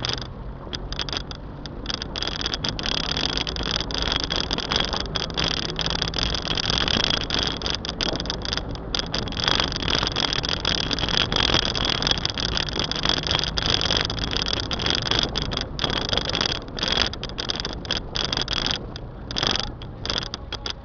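Car driving along a town street: engine and road noise heard from a camera on the car, getting louder a few seconds in, with many short knocks and crackles over it.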